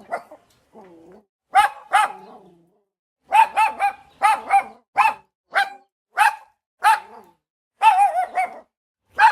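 A dog barking repeatedly in short, high-pitched yaps, some coming in quick runs of two or three and others singly.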